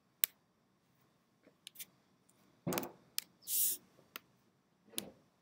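Computer mouse and keyboard clicks: a handful of sharp, separate clicks at irregular intervals, with a duller knock a little past halfway and a short hiss just after it.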